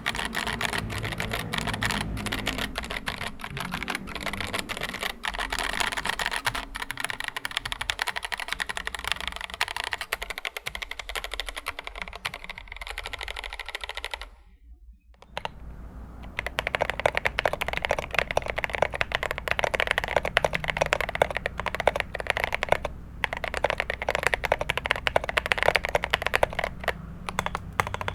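Fast typing on a Glorious GMMK Pro mechanical keyboard, a dense clatter of keystrokes. About halfway through it breaks off briefly, and typing resumes on the modded board: lubed Everglide Beeswax switches with 75g springs, holee-modded GOAT stabilizers, a polycarbonate plate, PE foam and SA keycaps.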